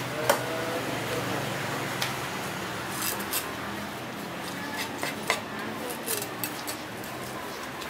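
Cleaver chopping snakehead fish fillets on a round wooden chopping block: sharp knocks of the blade striking the wood at irregular intervals. The loudest knock comes about a third of a second in, over steady background noise.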